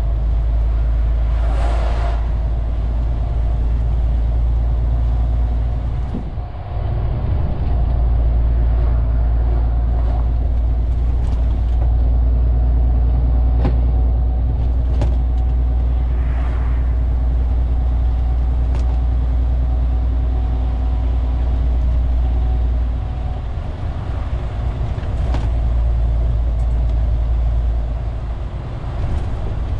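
MAN TGX 470 truck's straight-six diesel engine running steadily under way, heard inside the cab with a deep rumble and road noise. A brief rush of noise about two seconds in as an oncoming truck passes, and the engine sound dips briefly twice, about six seconds in and again past the two-thirds mark.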